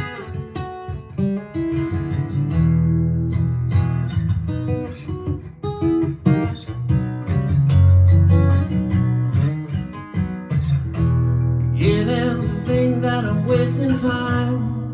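Solo acoustic guitar played as an instrumental break between verses, strummed and picked steadily, growing fuller near the end.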